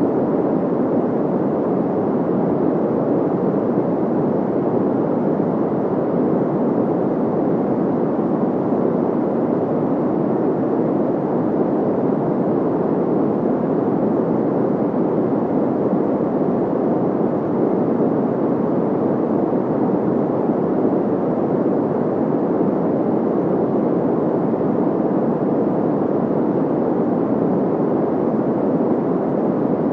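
Steady electronically generated white noise: a constant, dull rushing hiss weighted toward the low and middle range, with little treble and no change over time.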